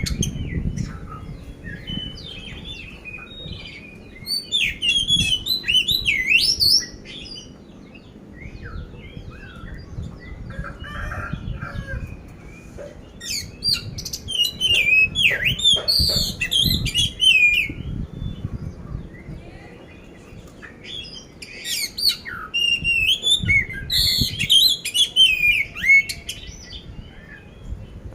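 Oriental magpie-robin of the black-bellied 'kacer poci' form singing in repeated bursts of fast, varied whistles and harsh mimicked notes, with short quieter pauses between the phrases.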